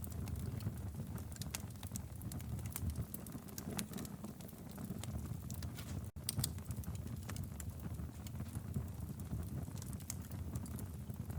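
Wood fire burning in a fireplace: a steady low rumble of flames with many sharp, irregular crackles and pops. The sound drops out for a split second about six seconds in.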